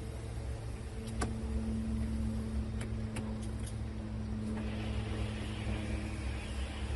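A steady low motor hum with a higher steady tone joining about a second in, a few faint clicks, and a soft hiss coming in after the middle.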